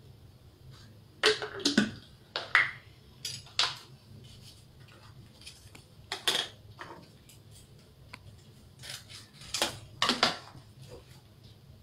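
Scattered clicks, knocks and rustles of small containers being handled and set down on a tabletop while a small packet and a cup are worked with, as yeast is made ready for elephant toothpaste. The sharpest knocks come about a second and a half in, and again around six and ten seconds.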